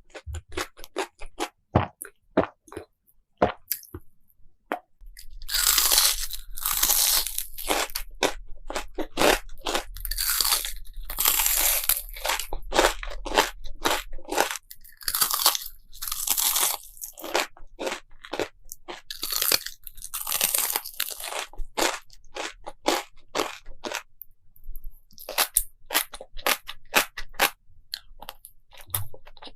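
Close-miked ASMR eating: a few sharp crunching bites, then from about five seconds in a long run of loud crunchy chewing strokes.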